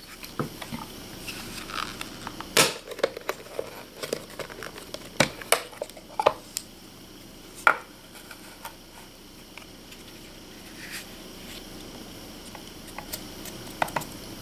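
Clear hard-plastic accessory case being unlatched and opened by hand: a series of sharp plastic clicks and clacks over the first eight seconds, then quieter handling, with a couple more clicks near the end as a scope ring is lifted out of the foam.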